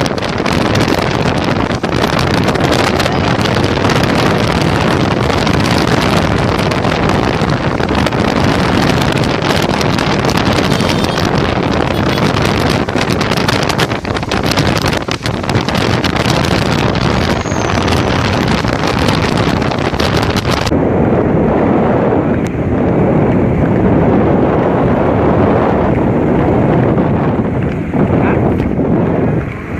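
Heavy wind buffeting on the microphone of a moving vehicle, with the vehicle's running and road noise underneath. No hoofbeats stand out. About two-thirds of the way in, the hiss loses its top and turns duller.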